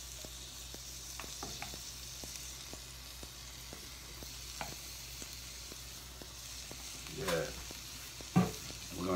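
Shrimp sizzling in melted butter in a cast-iron skillet as they are laid into the pan: a steady hiss with many small crackles and a few sharper clicks. A sharp knock sounds near the end.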